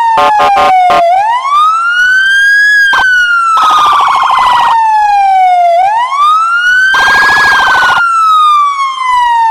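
Emergency-vehicle siren wailing: the pitch climbs quickly and then falls slowly, twice over. Harsh, buzzy horn-like blasts sound over it: a few short ones at the start, then two longer ones about a third and three quarters of the way in.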